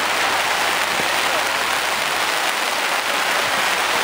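Heavy rain pouring down steadily, a downpour.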